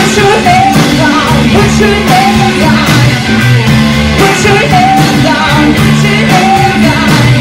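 Live rock band playing loudly: a woman sings into a microphone over electric bass, electric guitar and a drum kit, her short phrases each ending on a held note.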